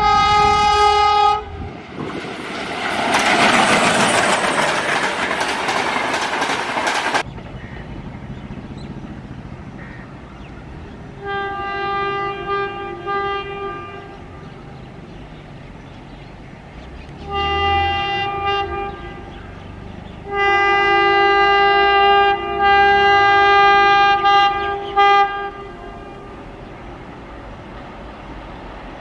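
A train horn blast, then the loud rush of a passing train for about five seconds. After that, a WAP7 electric locomotive approaching in fog sounds its horn three times: two blasts of about two seconds, then a long blast of about five seconds with a brief break.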